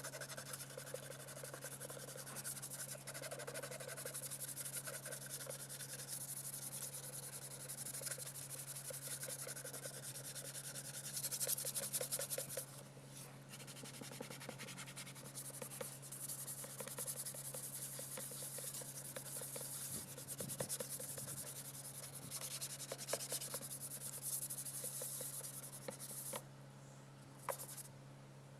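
Sandpaper rubbed back and forth by hand over the plastic lens of a faded car tail light, a steady scratchy rasp that gets louder for a short stretch midway and stops near the end, followed by a single click.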